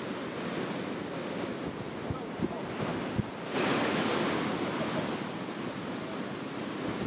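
Heavy ocean surf breaking and washing up the beach, stirred up by a tropical storm offshore, with wind buffeting the microphone. A louder wave crashes about halfway through and then washes out.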